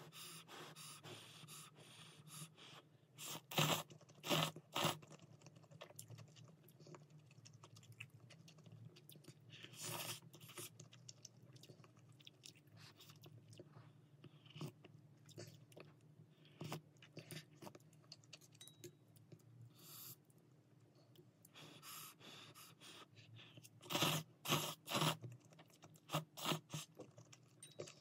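Close-up eating of spicy ramen with beef: chewing throughout, with two clusters of loud, sharp slurps, one a few seconds in and one near the end.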